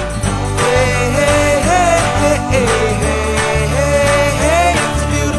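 Background music: a song with a held, wavering lead melody over a bass line.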